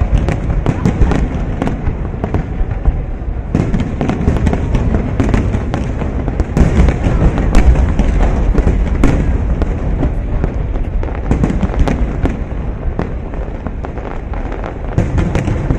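Large aerial fireworks display: shells bursting in rapid, overlapping succession, many sharp bangs a second over a continuous low rumble.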